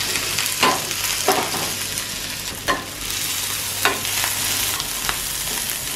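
Grated garlic and green chillies sizzling in hot oil in a nonstick frying pan, with a spatula scraping and knocking against the pan about four times as they are stirred.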